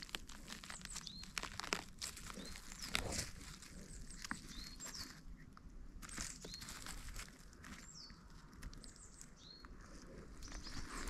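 Footsteps and rustling on the forest floor, with occasional sharp snaps. A small bird repeats a short high call about once a second.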